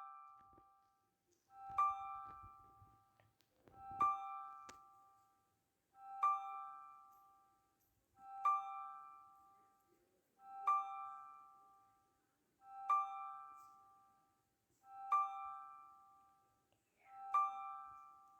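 A bell-like electronic chime repeating about every two seconds, eight times, the same short chord each time, ringing and fading before the next.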